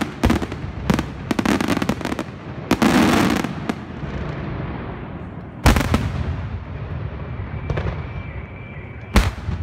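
Aerial fireworks bursting: a rapid string of bangs and crackling in the first few seconds, then one loud bang about halfway through and another near the end.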